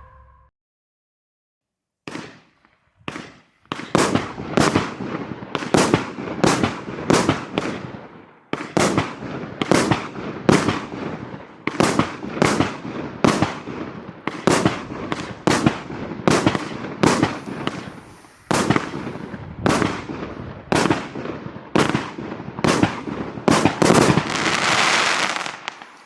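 A 25-shot 30 mm fireworks cake (Vortex 4) firing its shots one after another, starting about two seconds in, at roughly one a second, each a sharp bang with a short fading tail. A longer hissing burst closes the sequence.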